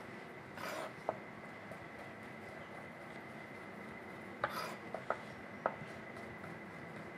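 Chef's knife slicing zucchini on a plastic cutting board: a few sharp, irregularly spaced taps of the blade on the board and a couple of short scraping sounds, all fairly quiet.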